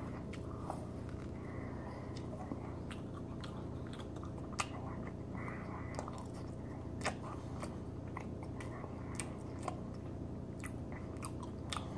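A person chewing a mouthful of garlic knot: faint, soft wet mouth clicks and smacks, a couple a little louder about four and a half and seven seconds in.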